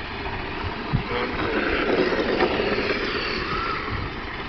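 Radio-controlled drift cars driving on a paved surface, their motors rising and falling in pitch over steady background noise.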